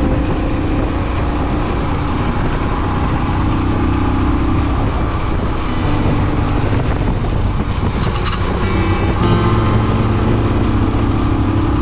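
Royal Enfield Himalayan's single-cylinder engine running steadily at cruising speed, heard from the rider's seat over a steady rush of wind and road noise.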